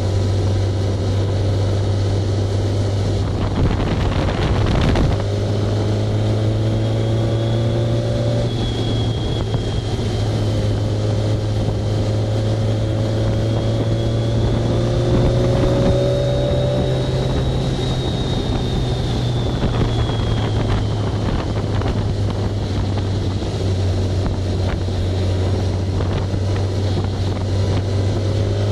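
Motorcycle engine running steadily on the move, its pitch drifting slowly up and down with the throttle, under heavy wind rush over the microphone.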